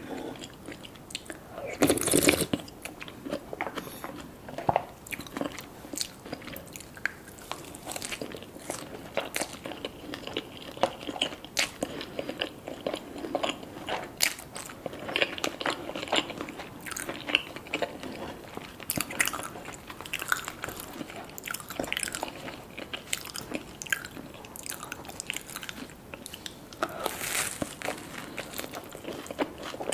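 Close-up eating sounds: crunchy bites and chewing, many small crackles and clicks, with a louder bite about two seconds in and another near the end.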